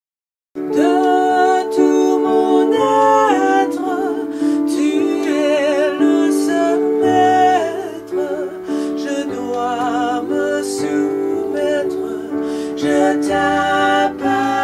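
Music starting about half a second in: a slow introduction with a wavering melody line over held chords, and a bass line coming in partway through.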